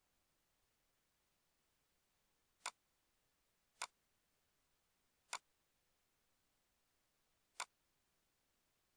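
Four sharp single computer mouse clicks, unevenly spaced about one to two seconds apart, against near silence.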